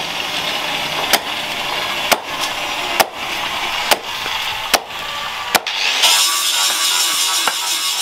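A long knife forged from leaf spring chopping into the end of a wooden pole on a wooden block, cutting it to a point: sharp chops about once a second, six in all. Music comes in about six seconds in, with fainter chops under it.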